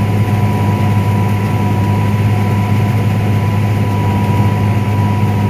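Combine harvester running steadily while cutting corn and unloading on the go: a constant low engine drone with a thin steady whine above it.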